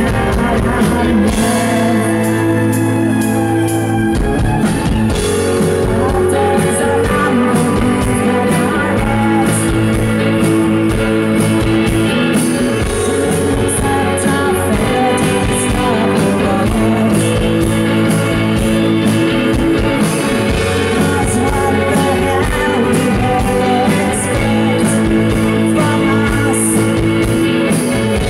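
A band playing a song live: electric guitars, drum kit and keyboard, with women singing. The first few seconds hold a sustained keyboard-and-bass drone before the drums come in about four seconds in.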